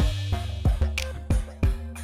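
Background music with a steady drum beat and a deep bass line.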